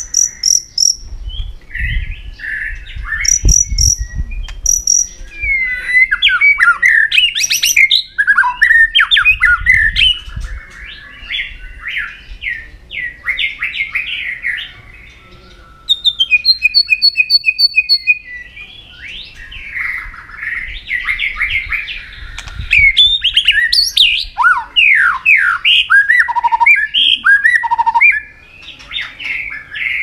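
White-rumped shama singing a continuous, varied song of many quickly changing whistled phrases, fast trills and down-slurred notes. About sixteen seconds in comes a quick run of high repeated notes lasting about two seconds. A few low thumps sound in the first ten seconds.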